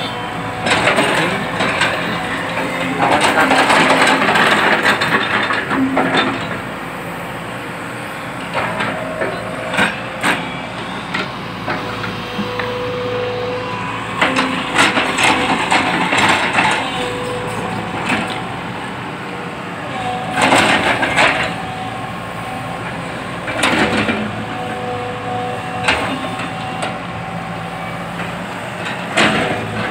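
JCB crawler excavator's diesel engine and hydraulics running with a steady whine, while its bucket scrapes through and drops rock and soil in several loud crunching bursts.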